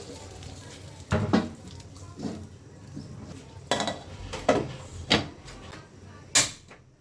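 Kitchen clatter: cookware and utensils knocking against each other in about seven sharp, irregular knocks.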